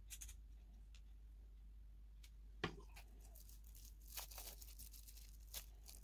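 Small clear plastic bag crinkling as it is handled: scattered short crackles, with one sharp click about two and a half seconds in and a cluster of crackles around four seconds in, over a faint low hum.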